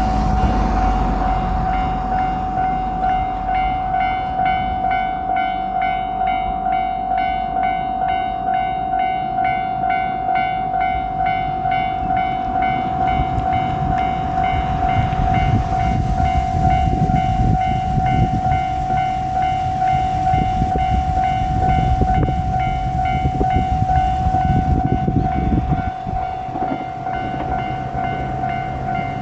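Japanese level-crossing warning bell ringing in a steady repeating beat. About 13 seconds in, a JR Shikoku 2700 series diesel limited-express railcar train is heard coming through, its engines rumbling and its wheels clattering over the rail joints. The train noise drops away at about 26 seconds while the bell keeps ringing.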